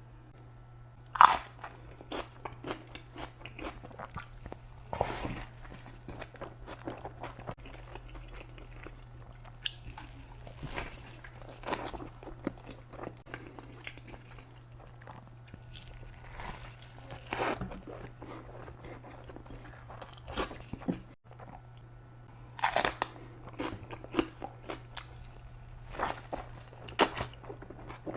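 Close-miked eating: irregular bites and crunches with chewing in between. The sharpest crunch comes about a second in. A faint steady low hum lies underneath.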